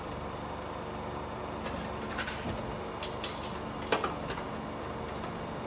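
Claw machine working its claw: a steady machine hum with several sharp clicks and knocks as the claw closes on the prizes and is hoisted back up, the loudest knock about four seconds in.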